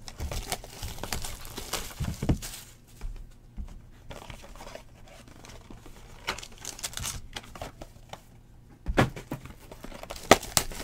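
Plastic and foil wrapping on a trading-card box being torn and crinkled by hand as the box is opened and the foil-wrapped pack inside is handled, with a few sharp cracks near the end.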